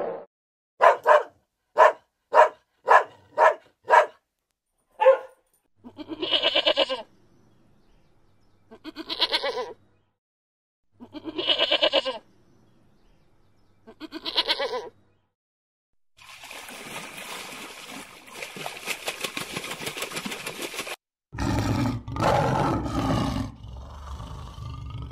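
A quick run of six short, sharp animal calls, then sheep bleating four times, each bleat about a second long and wavering. Near the end comes a rough, low roar.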